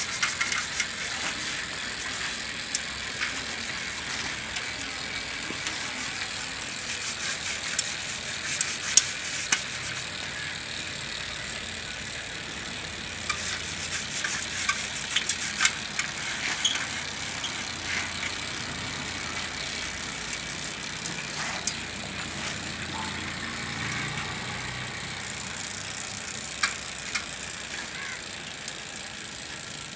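Bicycle parts being worked on by hand: scattered metallic clicks and rattles, a few sharp knocks clustered in bunches, over a steady hiss.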